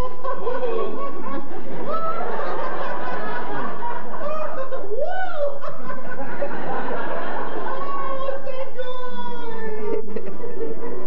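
People laughing and making drawn-out wordless vocal sounds, several voices overlapping.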